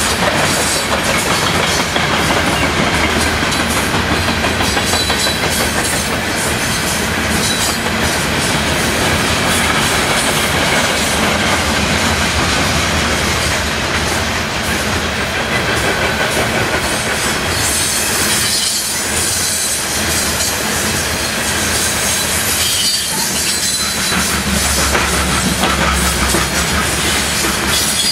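Loaded covered hopper cars of a heavy potash freight train rolling past at close range: a steady, loud rumble and rattle of wheels and cars on the rails, with now and then a faint high-pitched wheel squeal.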